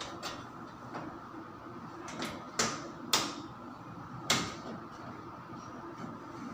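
Hard clacks of a track spotlight's fitting being handled on its ceiling track: three sharp knocks with a short ring, the second about half a second after the first and the third about a second later, among lighter clicks.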